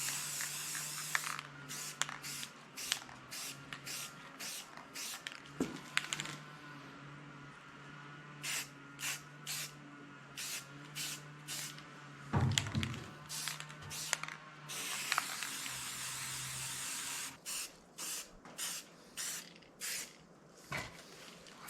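Aerosol spray-paint can of black enamel hissing, first in a long pass and then in many short bursts about two a second, with another long pass later. One loud knock about twelve seconds in.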